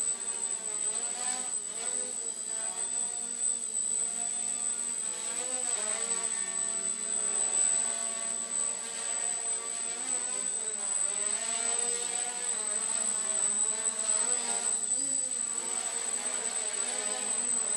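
Micro quadcopter's four Turnigy 1811 2900kv brushless motors with 5030 propellers buzzing in flight, the pitch rising and falling as the throttle changes, over a steady high whine.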